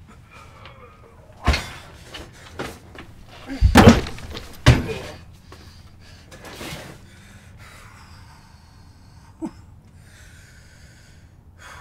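Heavy thuds and bangs inside a van, the loudest cluster about four seconds in, with smaller knocks around it and a light click near the end.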